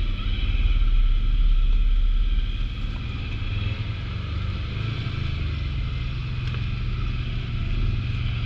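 ATV engine running under way, easing off to a lower level about two and a half seconds in.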